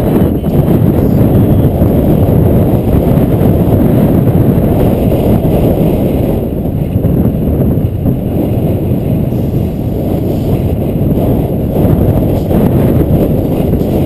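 Wind buffeting the microphone of a camera carried at speed down a mountain road, a loud, steady low rumble that eases a little midway through.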